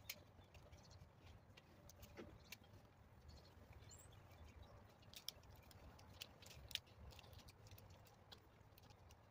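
Near silence, with a low background rumble and a dozen or so faint, sharp clicks and ticks at irregular intervals.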